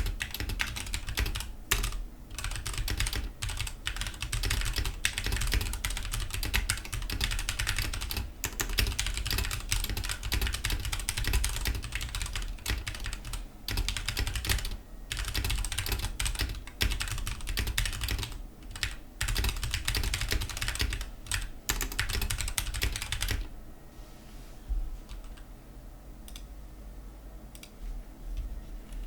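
Fast typing on a Ducky One 2 Mini mechanical keyboard with Cherry MX Silver linear switches, the sound softened by a cloth mousepad underneath: a dense run of key clacks with brief pauses, which stops about three-quarters of the way through and leaves only a few faint clicks.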